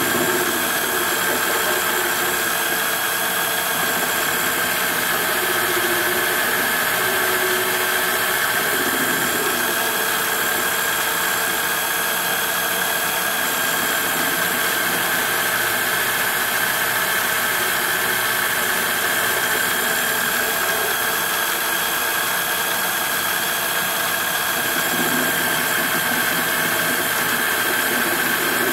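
Sieg mini lathe running steadily under power, a steady high whine over a hiss, as the turning tool faces off the head of a steel M6 bolt spinning in the chuck.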